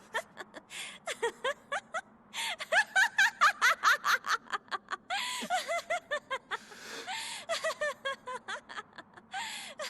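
A young woman's voice laughing in rapid, pitched bursts, loudest a few seconds in, broken by sharp breathy gasps. This is the character's unhinged laugh from an anime dub.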